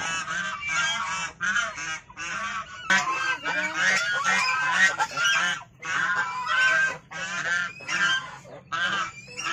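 A flock of white domestic geese honking, many short calls following one another in quick succession and often overlapping, with brief lulls about two seconds in and near the middle.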